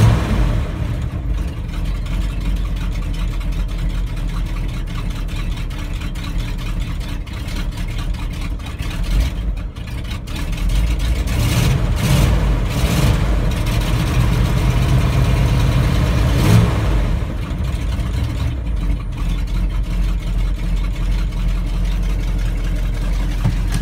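A 1965 Ford F-250's 352 V8 idling steadily as it warms up after a cold start in sub-zero cold, heard from inside the cab.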